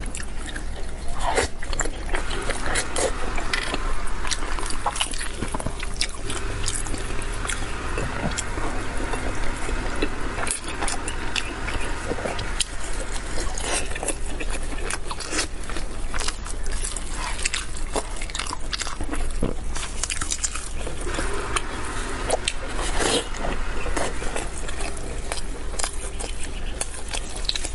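Close-miked eating of a spicy braised pork knuckle: chewing and biting of the soft skin and meat, with hands pulling pieces off the joint, heard as many short sharp clicks throughout.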